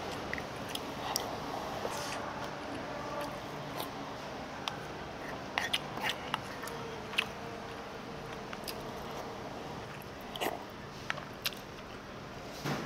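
Eating sounds: chewing, with scattered light clicks of utensils against dishes, over a steady low hum of room noise.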